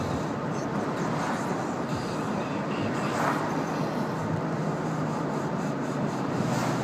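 Steady road and engine noise inside a moving car: tyres on the pavement with a low, even engine hum.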